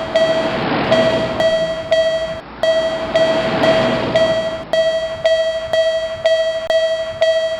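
Railroad crossing warning bell ringing "kan-kan", a steady ding repeated about twice a second. For the first few seconds a train's rushing noise passes under it, with a short break about two and a half seconds in.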